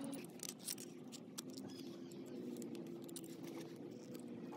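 Scattered light metallic clicks and ticks of tongue-and-groove pliers gripping and turning a brass hose bib.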